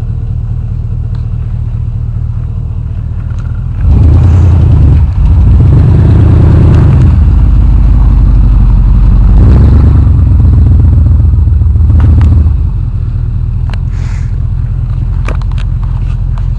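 Pickup truck engine running with a steady low drone, growing much louder for about eight seconds as the truck passes close by, then falling back to its earlier steady level.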